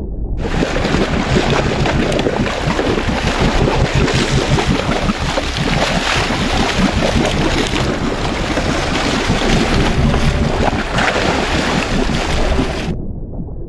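Water churning and splashing beside a boat as a hooked marlin thrashes at the surface, with wind buffeting the microphone. The sound starts abruptly just after the start and cuts off abruptly shortly before the end.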